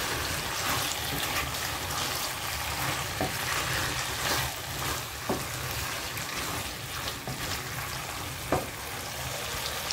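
Squid, corn and onion in sauce sizzling in a coated wok at medium heat while a spatula stirs and scrapes through them, with a few light knocks of the spatula against the pan.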